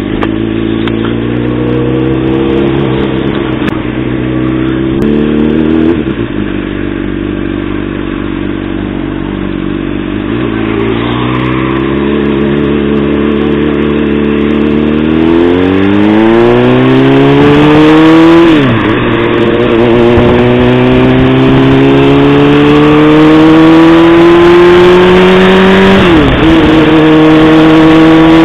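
Honda CBR600RR inline-four engine pulling away at low revs, then accelerating hard, its pitch climbing and dropping sharply at two upshifts before climbing again. Wind rush builds as speed rises.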